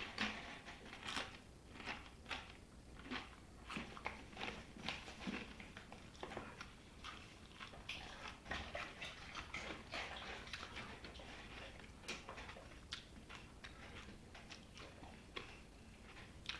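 Someone chewing crunchy corn tortilla chips: faint, irregular crunches that go on throughout.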